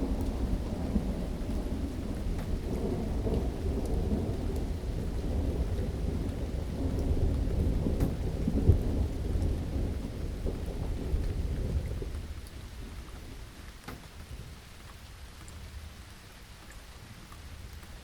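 Steady rain during a thunderstorm, with a long low rumble of thunder that dies away about two-thirds of the way through, leaving the rain alone.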